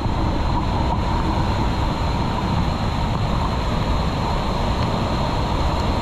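A fast-flowing stream rushing, a steady loud wash of noise with no breaks.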